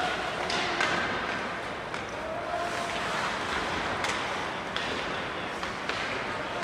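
Ice hockey play on a rink: skates scraping the ice, with several sharp clacks of sticks and puck over the steady hall noise of the arena.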